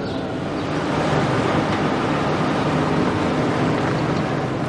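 A car pulling away and driving off: a steady engine and tyre rumble that swells about a second in.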